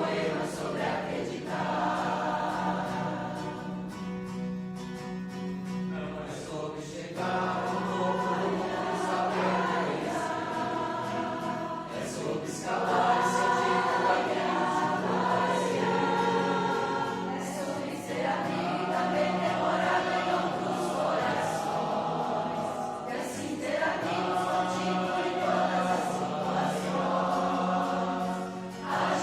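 A choir singing an arrangement of a Brazilian Portuguese-language pop song, phrase after phrase. A steady low note sustains underneath.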